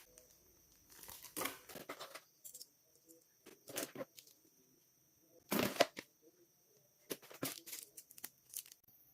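Packaging being torn open and crinkled by hand during an unboxing: several short bursts of tearing and rustling, the loudest about two-thirds of the way through.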